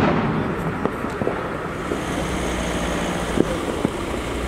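Scattered sharp firecracker bangs, single cracks a second or more apart, over a steady low rumble of wind and traffic.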